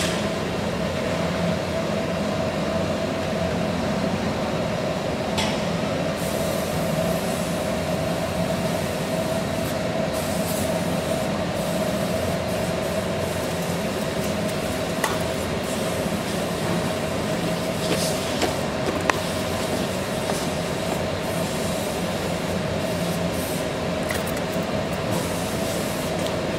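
CNC router machine running: a steady whine with a constant hum beneath it, and a few faint clicks.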